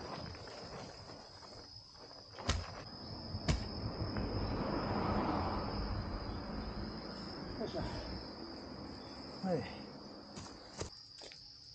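Insects trilling steadily in a high, even tone throughout. Over it come two sharp knocks about a second apart a few seconds in, then a longer scraping, rustling noise of soil being worked by hand and tool.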